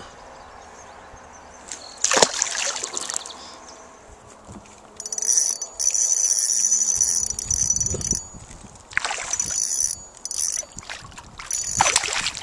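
A largemouth bass released back into the lake with a splash about two seconds in, followed by more splashy water noises later on. A steady high-pitched buzz runs for about three seconds in the middle.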